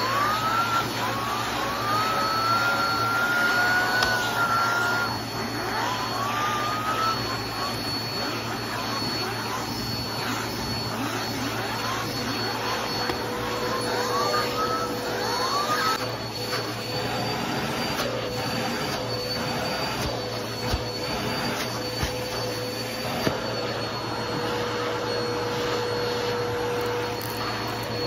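Vacuum cleaner running steadily, its hose and upholstery tool drawn over a fabric sofa cushion, with a steady high whine. Its suction rises in short whistles again and again through the first half, then settles into an even drone.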